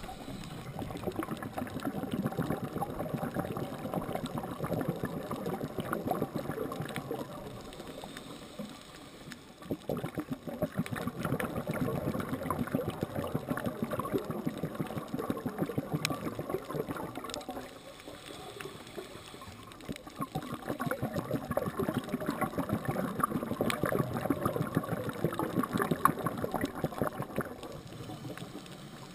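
Underwater bubbling and gurgling from a scuba diver's exhaled bubbles at the regulator. It comes in three long stretches, with quieter pauses of about two seconds between them where the diver breathes in.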